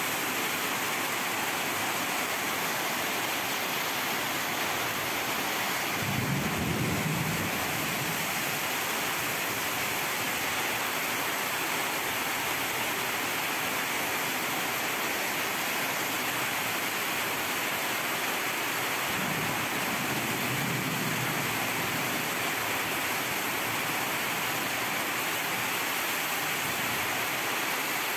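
Heavy rain pouring steadily onto rooftops, a dense, even hiss. Two brief low rumbles swell up through it, about six seconds in and again about twenty seconds in.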